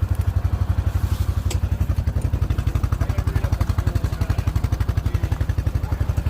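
ATV engine idling steadily, an even low putter of about ten pulses a second. There is a single sharp click about a second and a half in.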